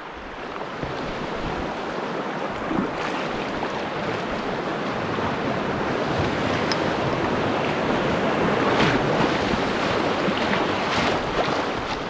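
Rushing whitewater of a shallow, rocky river rapid heard from a canoe running through it: a steady, dense wash of water noise that builds up over the first half.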